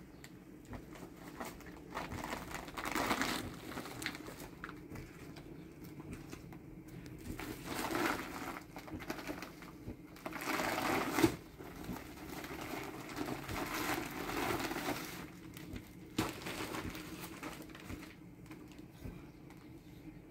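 Dry white powder poured from a woven plastic sack onto a heap of sand, with the sack rustling and crinkling. The pouring comes in several hissing bursts, the longest and loudest about ten to twelve seconds in.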